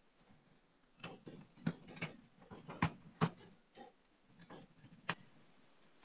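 Irregular sharp clicks and light taps, about half a dozen over four seconds, from the tablet and small tools being handled on the workbench.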